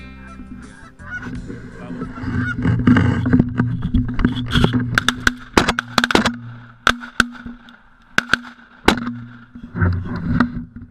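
A flock of Canada geese honking, with a quick run of sharp clicks in the middle.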